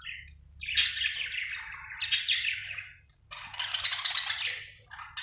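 Budgerigar chirping and chattering in several quick bursts, with a short break about three seconds in.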